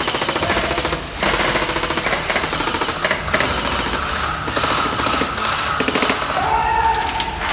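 Airsoft rifles firing on full auto: long runs of very rapid shots with a short break about a second in.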